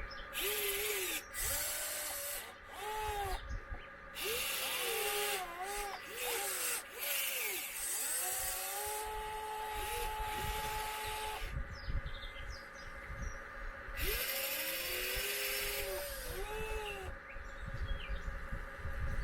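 Electric motors of radio-controlled construction models whining in short sweeps that rise and fall in pitch as the controls are worked. About halfway through, one whine holds steady for a few seconds. Patches of hiss come and go.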